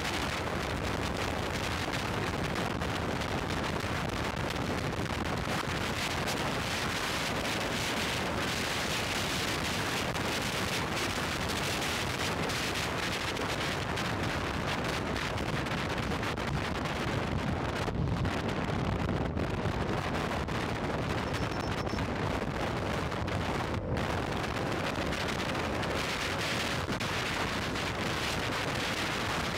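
Steady rush of wind buffeting the microphone of an action camera on a motorcycle moving at highway speed.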